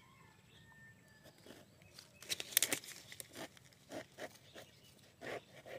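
Thick pomelo rind being sliced against a boti, a fixed curved blade: a series of short cutting and scraping strokes, the loudest cluster about two and a half seconds in, then single cuts spaced roughly every half second.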